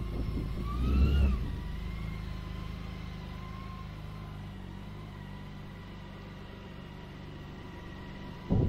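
BMW K1600 motorcycle's inline-six engine running at low revs as the bike creeps along on its landing gear, with a brief rise in revs about a second in. It then settles to a steady low hum that fades as the bike moves away.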